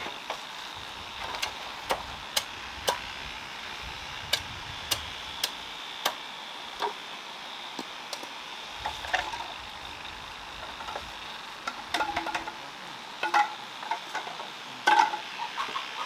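Bamboo poles being worked by hand, giving irregular sharp taps and knocks about once every second, with a quick cluster of knocks near the end, over a steady high hiss.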